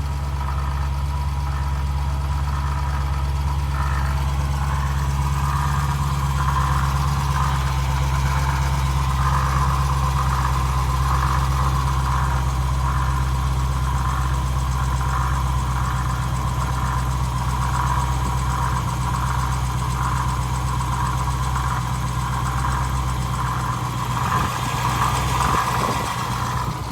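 Dodge Challenger Scat Pack's 392 HEMI V8 idling, with a repeated pulsing whine about once a second over the engine note: the sound of a bad water pump.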